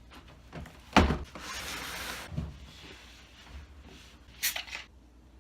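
Handling noises: a sharp knock about a second in, then about a second of rubbing or sliding, a smaller knock, and a short hissy scrape or rustle near the end.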